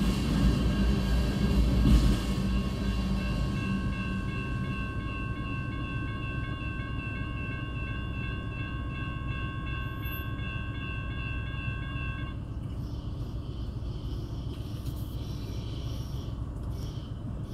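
The last cars of a freight train rumble over the rails for the first two or three seconds. Under it, the crossing's electronic bells (a GS Type 1 E Bell and a GS Type 2 E Bell) ring steadily, then stop about twelve seconds in as the crossing clears.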